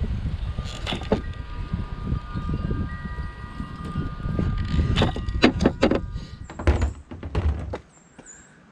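Metal tools clinking and knocking, with a metallic ring that hangs on for several seconds, over rough handling noise; it goes quiet near the end.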